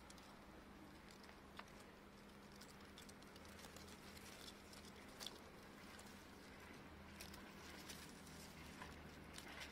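Near silence: faint scattered rustles and light ticks of dry grass, leaves and a plant stem as a kitten bats at the stem, with a few sharper clicks, over a low steady hum.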